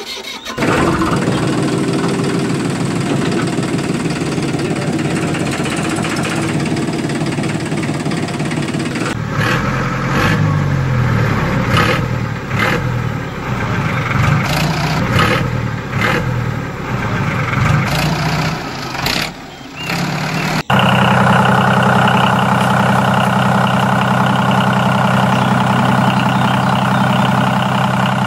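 Diesel tractor engine running, its pitch wavering up and down as it revs. About twenty seconds in it cuts abruptly to a steady idle.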